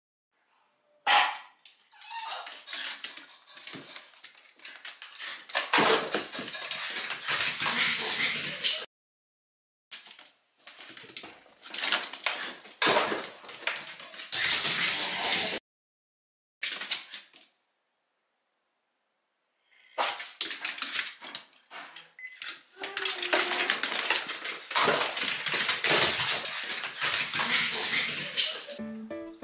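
Small mame-shiba (miniature Shiba Inu) dog barking and whining in several short stretches, broken by sudden silent gaps.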